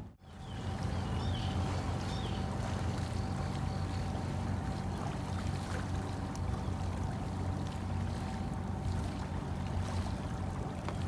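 A sailboat's inboard engine running steadily while the boat motors along, with a thin steady whine above it. Water rushes past the hull.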